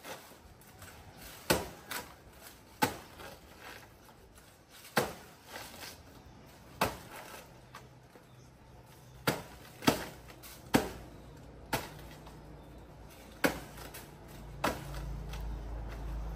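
A blade chopping into the soft trunk of a banana plant: about ten sharp, separate strikes at uneven intervals, to fell a fruiting stalk. A low steady hum comes up near the end.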